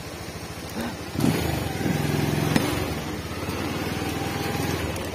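Motorcycle engine running as the bike rides over a rough, rocky dirt track, the engine note picking up and getting louder about a second in.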